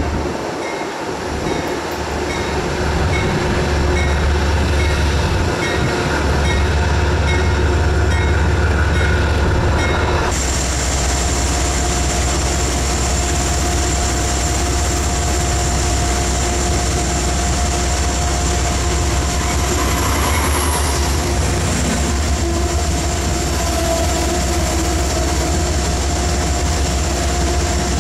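Amtrak passenger trains at a station. First a GE P32AC-DM diesel-electric locomotive hauls its train in. After an abrupt change about ten seconds in, another Amtrak train runs past close by: a steady heavy rumble with a thin, high, steady whine.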